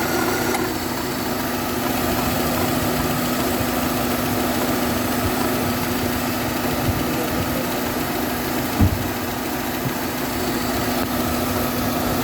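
Car engine idling, with the noise of a failing air-conditioning compressor that rubs excessively as it engages: a steady hum with a strong constant tone. A few higher tones drop away about half a second in, and there is a single short knock near the end.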